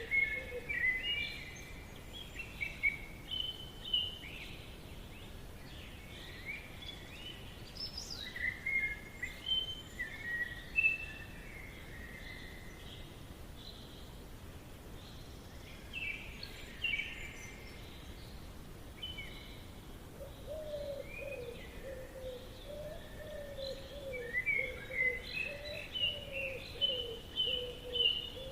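Forest ambience: several songbirds chirping and trilling in short, overlapping phrases over a steady background hiss. From about two-thirds of the way through, a lower, wavering run of calls joins them.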